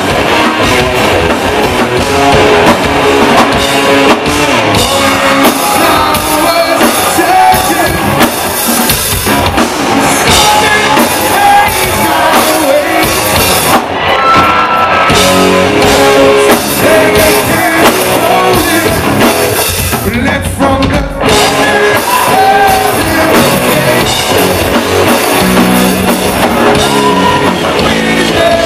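A live hard rock band playing loud: electric guitars, bass guitar and a drum kit, with a lead vocal singing over them, heard from the audience.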